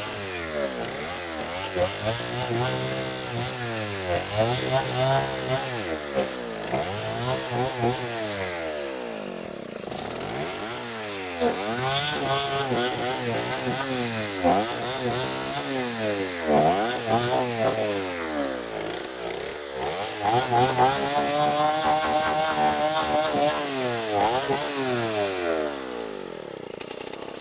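Chainsaw engine revved up and down over and over while cutting a tree, its pitch rising and falling every second or two.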